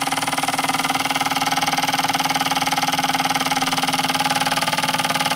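Wilesco D10 toy steam engine running at a steady speed, its fast, even beat rattling through the ceramic tile it sits on, with a steady hum.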